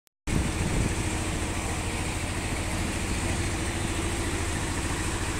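An engine idling steadily with a fast, even low pulse, over the steady rush of a fast mountain river.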